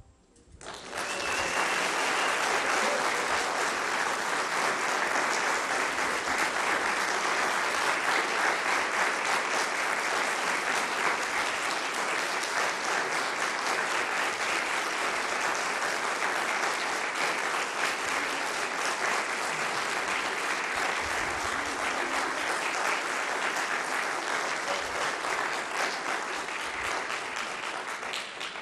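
Audience applauding, beginning about a second in and carrying on steadily, easing slightly near the end.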